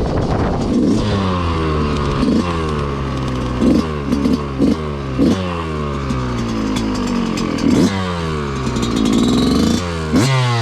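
Motorcycle engine being revved in repeated sharp blips, each rise in pitch falling back toward idle, several in quick succession in the middle.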